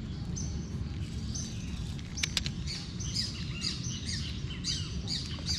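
Small birds chirping: a quick run of short, high calls repeating throughout, over a steady low rumble.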